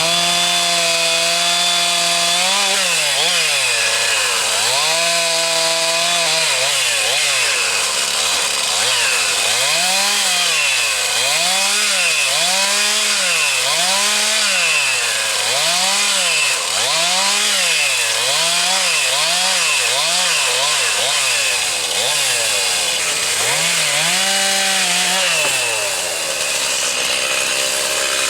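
Two-stroke chainsaw running at high revs and cutting wood. Its engine pitch holds steady at first, then repeatedly dips and climbs back about once a second, and steadies again near the end.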